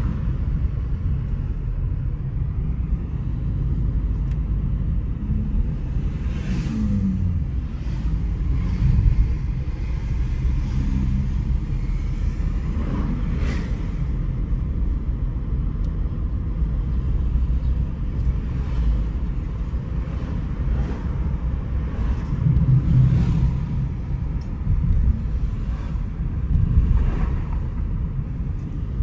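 Car driving through town, heard from inside the cabin: a steady low engine and road rumble, with a few brief louder swells.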